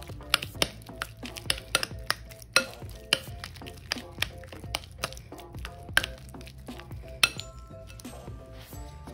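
A metal fork mashing and stirring cream cheese in a glass bowl, clinking sharply against the glass about two or three times a second, the strokes thinning out near the end. Background music plays underneath.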